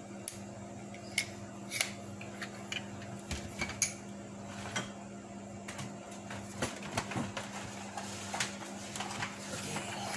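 Scattered light clicks and clinks of small hand tools being handled, about one every second, over a steady low electrical hum.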